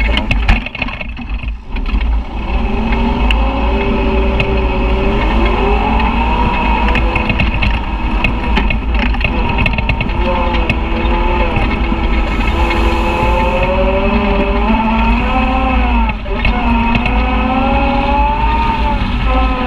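Side-by-side UTV engine running under way, its pitch rising and falling with the throttle over a steady low rumble. About a second in there are a few sharp knocks and a brief jolt in the level.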